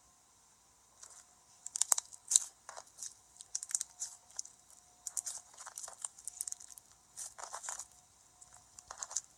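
Slime being squeezed and worked by hand, making irregular clusters of sharp crackling pops and clicks.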